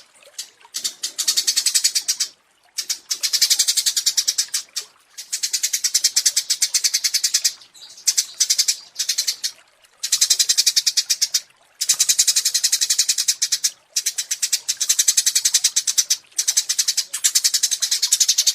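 Small songbird singing high, very rapid trilled phrases of one to two seconds each, repeated one after another with short gaps.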